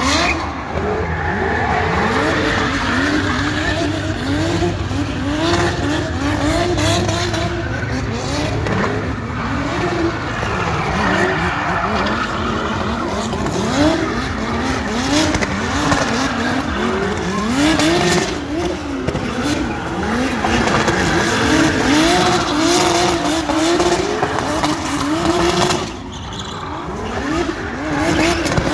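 Drift cars' engines revving hard, their pitch climbing and dropping over and over as the cars are held sideways, with tyres squealing and skidding as they slide.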